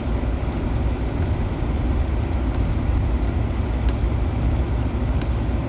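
Steady low rumble of engine and road noise inside the cab of a 2011 Ford Ranger pickup as it drives along.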